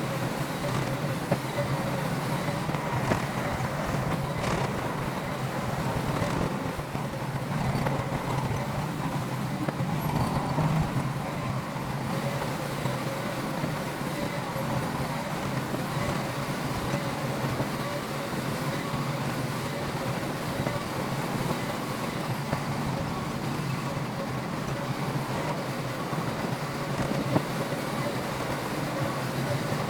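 Bulldozer's diesel engine running steadily, with a few brief sharp knocks.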